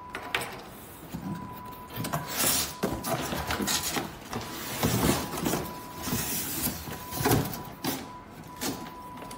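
Cardboard shipping carton being unpacked by hand: flaps rustling and scraping, and the inner box sliding and bumping against the outer one in irregular bursts with a few dull thumps. A thin steady high tone comes and goes underneath.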